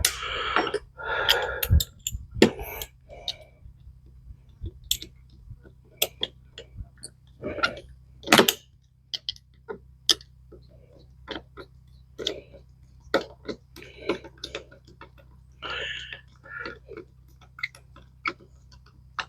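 Irregular light clicks and taps of SU carburettor parts being handled and fitted by hand during reassembly, a few sharper knocks among them, over a steady low hum.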